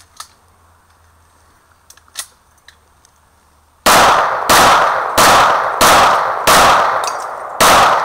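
A few faint clicks, then, about four seconds in, a pistol fired in steady succession: seven shots roughly two-thirds of a second apart, each dying away in a short echo.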